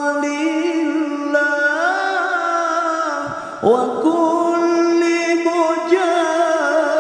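A male qari's solo voice chanting in the ornamented Arabic maqam style, holding long notes with melismatic turns. About three seconds in he breaks for breath, then sweeps up and holds a higher note.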